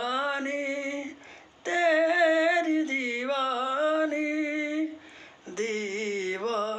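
A man singing unaccompanied in a high voice, a Sufi-style melody drawn out in long held notes that bend and waver without words, in three phrases with two short pauses between them.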